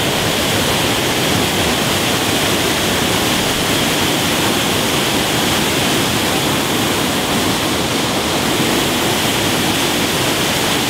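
Waterfall on a small mountain stream: a steady, loud rush of falling water, pouring with sheer force.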